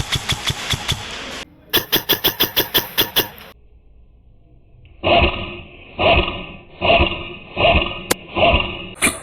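Airsoft gun firing two rapid full-auto bursts of evenly spaced shots. After a short pause comes a slower series of thumps, about one a second.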